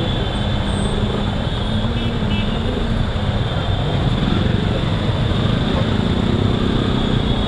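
Motorcycle engine running at low speed while the bike creeps through dense stop-and-go traffic, its pitch wavering slightly, over a steady wash of surrounding traffic noise.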